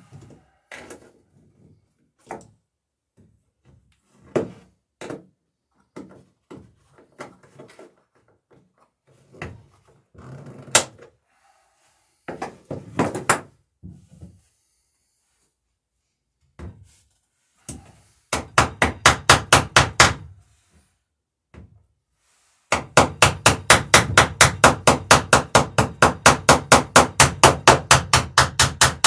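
Hammering copper rivets on a wooden dory's planking: scattered single knocks and taps at first, then rapid, even hammer blows of about six or seven a second, a short run past the middle and a long run through the last six seconds, as the rivets are peened over.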